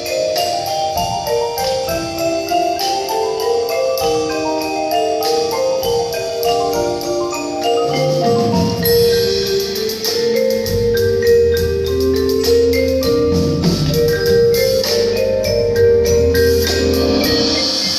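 Music: mallet percussion, marimba- and xylophone-like, playing a fast run of short notes, with low sustained tones coming in underneath about ten seconds in.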